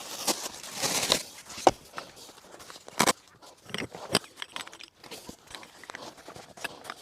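Close rustling and crinkling with scattered clicks and knocks, and one sharp crack about three seconds in: a person handling gear at close range.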